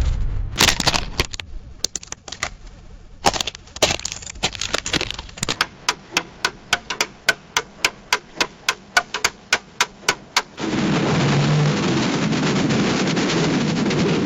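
Sound effects: a series of sharp cracks, a few irregular ones at first, then an even run of about three or four a second. About ten seconds in they give way to a steady noisy rush with a low hum under it.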